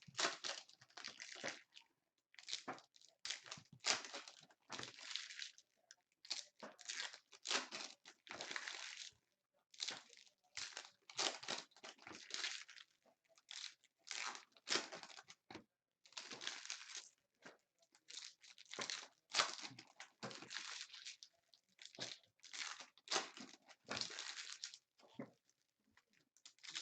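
Basketball trading-card packs being torn open, their foil wrappers crinkling in quick, irregular rustles with short pauses between.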